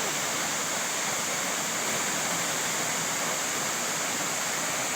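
Steady, even rushing noise with a strong high hiss, unchanging throughout.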